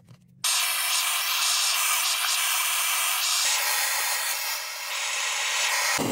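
Hose-fed gas torch hissing steadily as it heats a copper pipe joint for soldering onto a shower valve. The hiss cuts in suddenly about half a second in, and a deeper rushing sound joins near the end.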